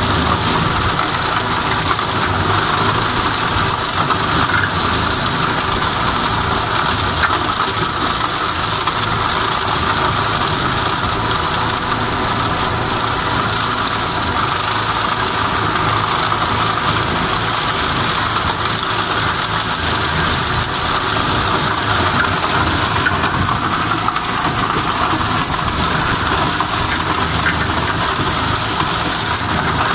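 Tractor engine running steadily under load, driving a Kellfri WKL180 flail mower through its PTO shaft, the flails shredding brush and grass. The sound is a steady, even mechanical noise throughout.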